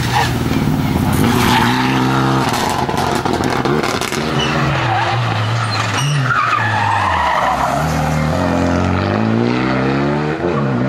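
Renault Mégane RS rally car's turbocharged four-cylinder engine driven hard, its note rising and falling through gear changes, dipping low about halfway through and climbing again near the end.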